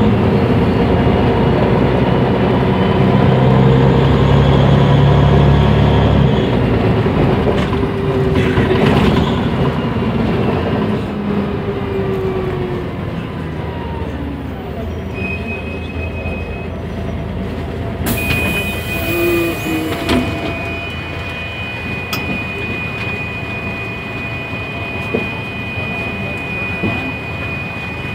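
Inside a Mercedes-Benz O345 Conecto city bus with a Voith automatic gearbox. The diesel engine pulls strongly for about six seconds, then eases off, and a falling whine follows as the bus slows. About eighteen seconds in there is a two-second burst of air hiss, and after it a steady high beep.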